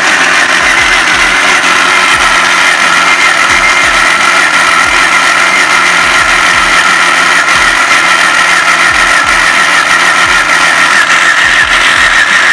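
Starter motor cranking a Honda Civic's four-cylinder engine without it firing, a long, steady cranking with a high whine, turning the engine over to prime the oil through the system after a cylinder head swap.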